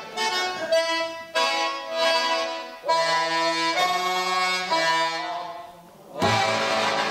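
Button accordion playing slow held chords that change every second or so and fade away. About six seconds in, the full folk band comes in louder, with a steady pulsing bass beat.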